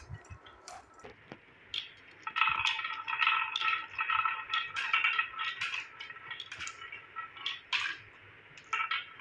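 Glass marbles rolling down a wooden marble-run slope with wavy grooves and knocking into plastic chutes. The clicks come thick and fast for a few seconds from about two seconds in, then thin out to scattered clicks.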